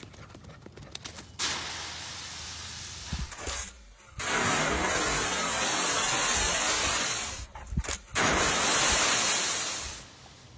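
Dry autumn leaves rustling and crunching as a dog plunges and bounds through a leaf pile. There is a quieter patch early on, then two long, loud stretches of rustling broken by a brief gap.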